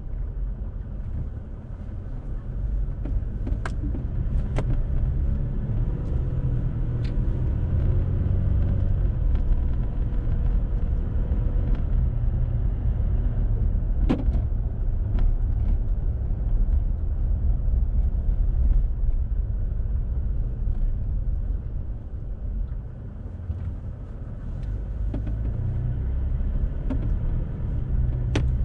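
Car driving through town: a steady low rumble of engine and tyres that dips twice and builds again as the car slows and pulls away, with a few sharp clicks.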